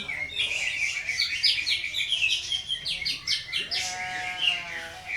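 Green leafbird (cucak ijo) singing a fast, unbroken run of high, harsh chirps and short trilled notes. Near the end it gives a drawn-out nasal, bleat-like call.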